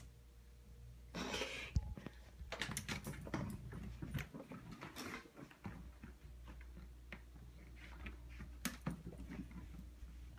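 A cat's paws patter and thump on a hardwood floor as it dashes about, in scattered irregular clicks and short scuffles.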